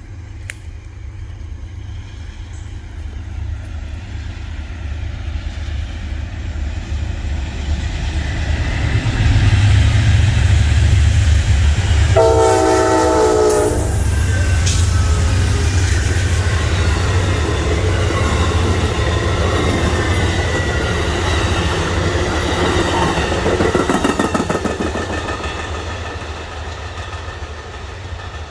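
Amtrak GE P42DC diesel locomotive leading a passenger train past, its low engine rumble building as it approaches. The horn sounds one chord of about a second and a half, roughly twelve seconds in. The wheels clatter on the rails as the cars go by, and the sound fades near the end.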